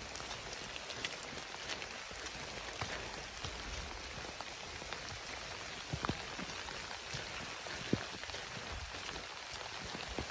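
Rain falling steadily in woodland, with scattered sharp drop ticks and a couple of louder knocks about six and eight seconds in.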